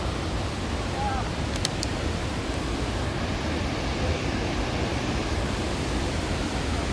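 Steady rushing noise of a large waterfall, the Kalandula Falls on the Lucala River, even and unbroken throughout.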